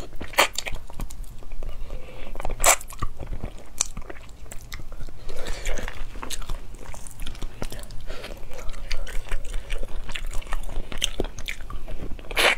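Close-miked eating sounds: wet chewing, lip smacks and sucking as meat is picked off a spicy braised rabbit head, with sharp clicks now and then, the loudest just before the end.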